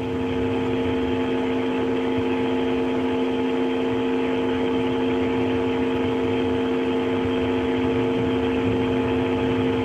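Steady machinery hum: several fixed, unchanging tones over an even hiss.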